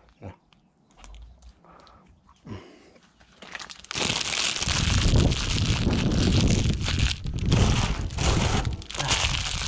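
Faint small sounds at first, then from about four seconds in a loud, continuous rustling and crumpling close to the microphone.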